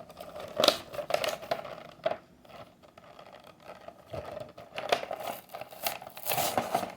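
A toy's cardboard box and its packaging being handled and torn open by hand: irregular crinkling, scraping and tearing strokes.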